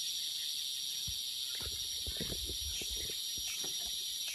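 Steady high-pitched drone of insects in tropical forest, with a few soft thuds and knocks from footsteps and handling in the middle.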